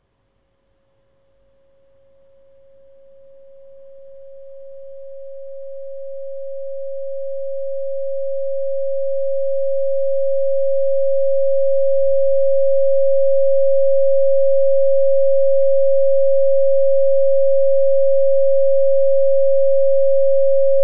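Computer-generated 545 Hz sine tone from a sound simulation, fading in slowly from silence and growing to full loudness over about a dozen seconds, then holding steady. The tone is coming back as air is let back into the simulated vacuum box around the speaker, so the air can carry the sound again.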